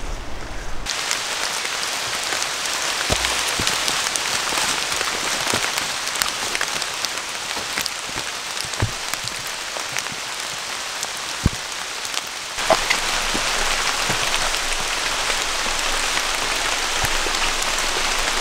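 Steady rain falling, with many single drops tapping. The rain sound starts abruptly about a second in and steps up a little louder about two-thirds of the way through.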